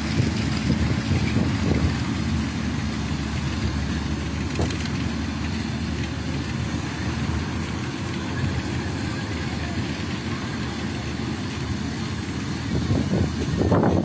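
Combine harvester running steadily as it cuts wheat: a low, even rumble with wind buffeting the microphone, growing louder near the end.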